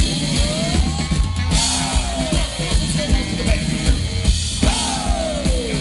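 Live swing big band playing an instrumental passage over a drum-kit beat, with two long falling notes in the band.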